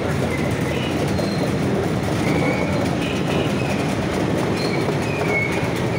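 Classic motorcycles and Vespa scooters running at low speed as they pass one after another, their engines blending into one continuous, steady rumble.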